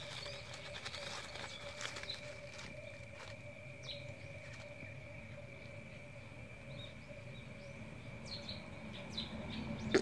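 Outdoor ambience of scattered short bird chirps over a faint steady drone, with light rustling in dry leaves during the first few seconds. A sudden sharp sound comes right at the end.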